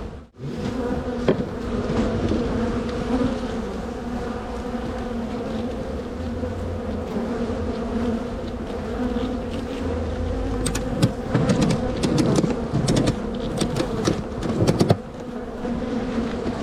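A mass of honeybees buzzing in a steady hum from an opened hive. About two-thirds of the way through comes a run of sharp clicks and knocks.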